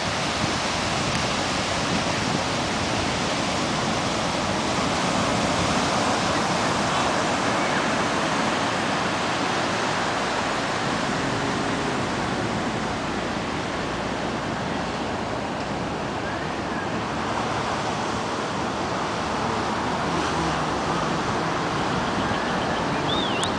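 Ocean surf breaking on the beach, a steady wash of noise.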